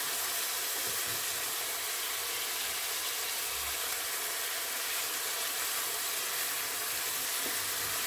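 Minced beef sizzling as it fries in hot oil in a stainless steel pan, a steady even hiss.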